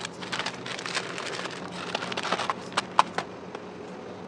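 Deli paper crinkling and rustling as a burger is wrapped by gloved hands: a run of sharp crackles and clicks that stops about three seconds in.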